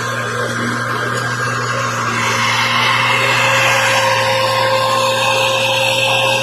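A machine running steadily: a constant hum under several steady whining tones and a rushing hiss, getting a little louder about two seconds in.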